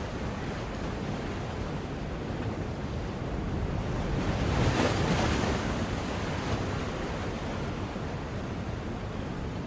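Steady rushing noise that swells louder about five seconds in and then eases back.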